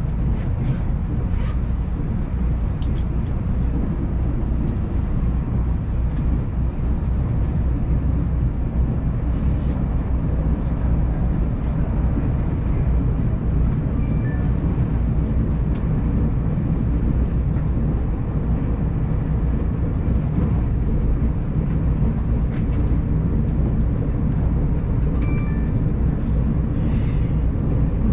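Steady low rumble of a Taiwan Railways passenger train running, heard inside the passenger car. There are two faint short electronic tones, one about halfway and one near the end.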